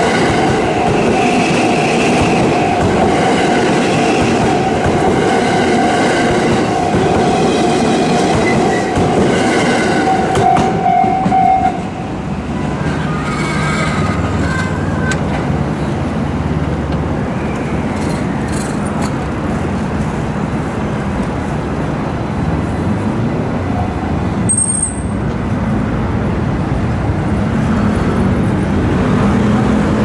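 JR West 323 series electric train passing close by, its wheels running over the rails with a steady whine riding on top. About twelve seconds in the sound drops abruptly to a quieter, lower rumble of a train on the track.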